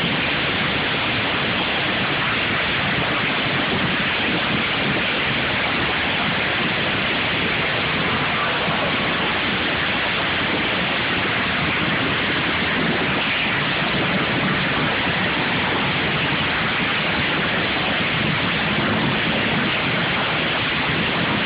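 Several lawn mower engines running at once, heard as a steady, dense wash of noise with a faint low engine hum underneath.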